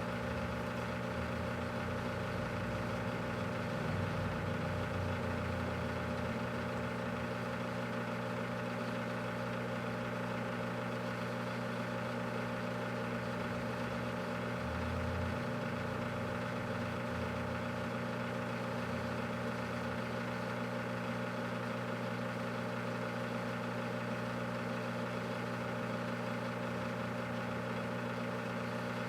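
Microwave oven running with a steady low hum, heating a whole watermelon inside.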